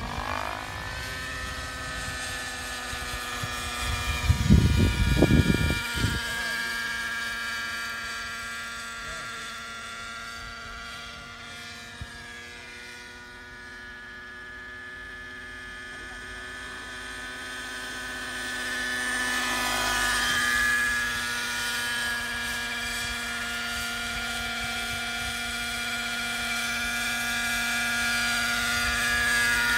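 Hirobo Freya radio-controlled model helicopter flying, a steady whine made of several pitched tones from its rotors and drive. It fades as the helicopter flies far off, then grows louder with the pitch bending as it passes close about two-thirds through and again near the end. A loud, low buffeting on the microphone comes about four seconds in and lasts two seconds.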